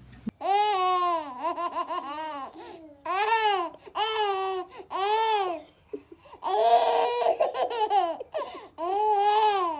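Babies laughing and squealing: a string of high-pitched squeals, each rising and falling in pitch, with short breaks between them.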